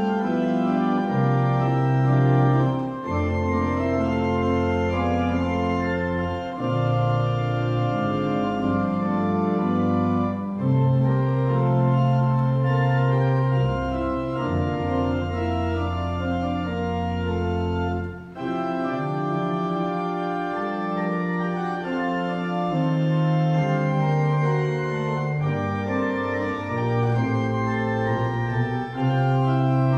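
Organ music: sustained chords held over slow-moving low bass notes that change every few seconds, with a brief drop in level about eighteen seconds in.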